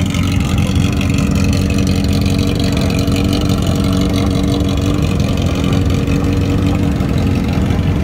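Several motorcycle engines idling steadily together.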